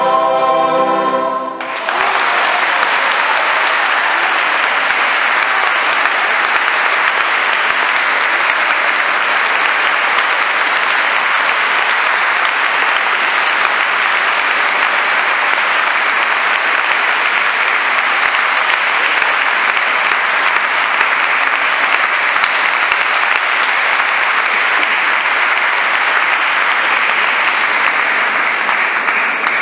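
A mixed choir holds a final chord that cuts off about two seconds in, followed by steady, sustained audience applause.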